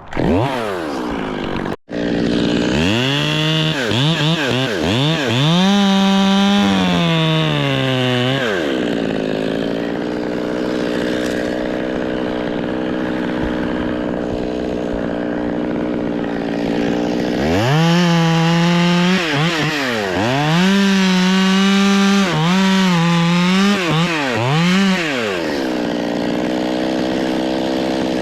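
Two-stroke chainsaw being revved up and down in quick blips, then held at high speed for a few seconds with its pitch sagging slightly as if under cutting load. It drops back to a steady idle, then revs in several more blips about halfway through before settling to idle again.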